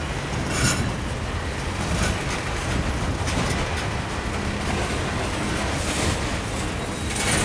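Freight train cars rolling past on the rails: a steady rumble of steel wheels on track, with a few brief sharper metallic noises.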